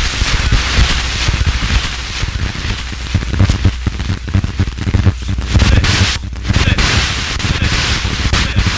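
Harsh turntable noise: dense crackling static and popping over a heavy low rumble, played from turntables through a DJ mixer. It surges and drops in level, with a brief dip about six seconds in.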